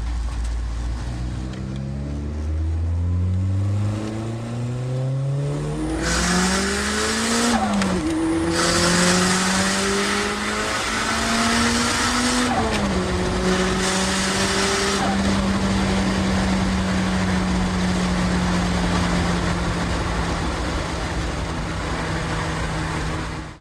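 Toyota Celica GT4 ST205's turbocharged 2.0-litre four-cylinder heard from inside the cabin under hard acceleration. The engine note climbs steadily, drops sharply at upshifts about eight and thirteen seconds in, then holds a steady pitch at high cruising speed.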